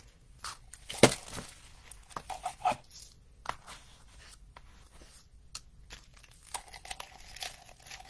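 Shiny gift shred crinkling and rustling as it is handled and stuffed into a clear ornament: a run of short, irregular crackles, the sharpest about a second in.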